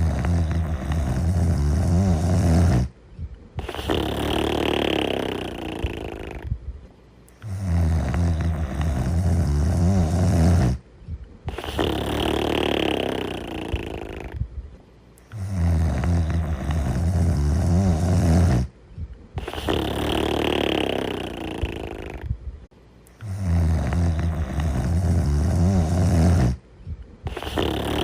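Slow, steady snoring: four breaths about seven to eight seconds apart, each a low, deep snore lasting about three seconds followed by a breathier, hissing breath of similar length.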